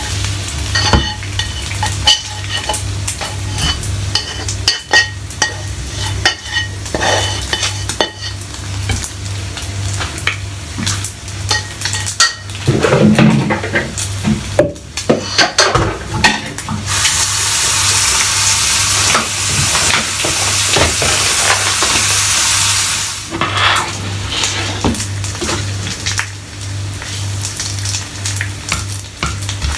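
Bacon frying in a pan, sizzling, with a spatula scraping and clinking against the pan as it is turned and stirred. A louder, steady stretch of sizzling lasts about six seconds past the middle.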